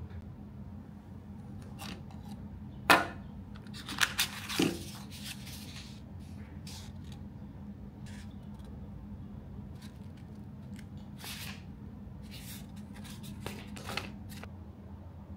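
A few sharp clicks and knocks over a steady low hum: the loudest about three seconds in, a quick run of three about a second later, and a few fainter ticks near the end.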